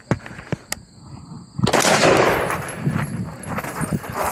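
Gunfire on a shooting range: a few sharp cracks in the first second, then from about a second and a half in a couple of seconds of dense, rapid, echoing shots.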